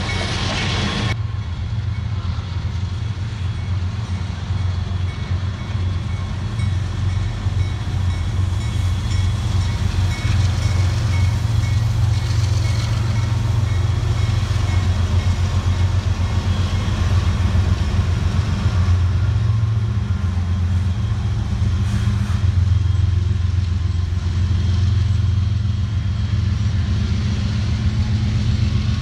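Norfolk Southern freight train's diesel locomotives running, a loud, steady low engine drone.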